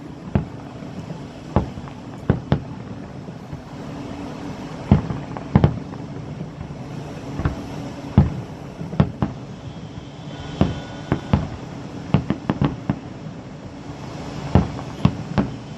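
Fireworks going off: sharp bangs at irregular intervals, some singly and some in quick clusters, over a steady low background hum.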